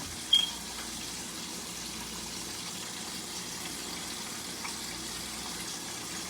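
A steady hiss with a faint low hum underneath, broken by one brief sharp click about a third of a second in.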